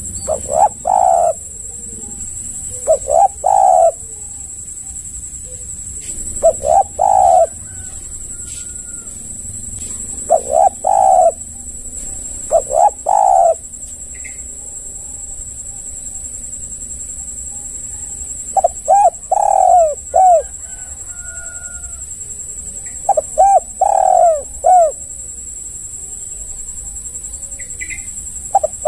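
Spotted dove cooing, about eight phrases of two to four coos each, with pauses of a few seconds between them and a longer pause in the middle. A steady faint high hiss runs underneath.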